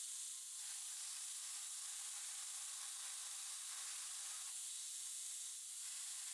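Belt grinder's abrasive belt grinding a steel knife blade flat, held to the platen with a magnet: a steady, faint hiss.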